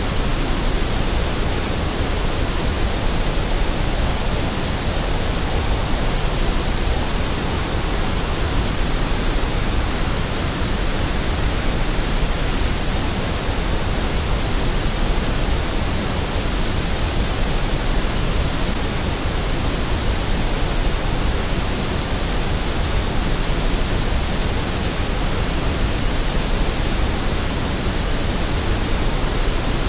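Steady synthetic white noise: an even, unchanging hiss spread across all pitches.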